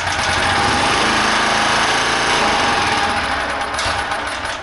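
Portable generator's small engine running loudly with damaged connecting-rod bearings ("esbielado"), the knock of a broken engine.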